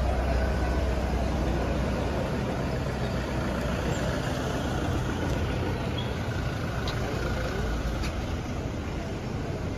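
A convoy of cars and SUVs driving slowly past at close range, engines and tyres giving a steady low rumble that eases off a little near the end.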